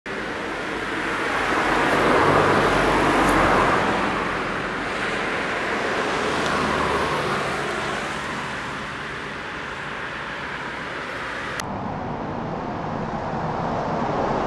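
Steady rushing noise that swells from about two seconds in and slowly fades, over a faint low hum; about twelve seconds in the upper part of the sound cuts off suddenly, leaving a duller rumble.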